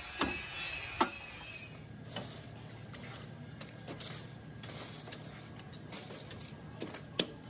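A stack of lead battery grid plates knocked twice against a metal-topped bench to square it up. Then a ladle stirring and scraping in a large iron pan of smouldering material over a fire: scattered light clicks over a low steady hum, with one sharper click near the end.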